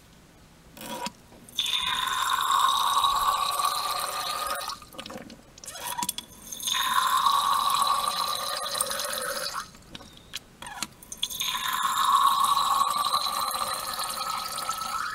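Water streaming into glass test tubes to dilute the solutions in them, three separate fills of about three to four seconds each, with short pauses between.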